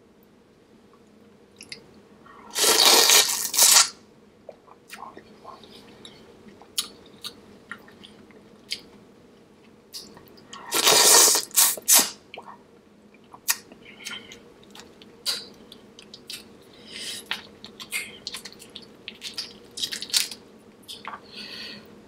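A person eating seafood boil close to the microphone: wet chewing and many small smacking clicks, broken twice by a loud, noisy sound about a second long, around 3 and 11 seconds in.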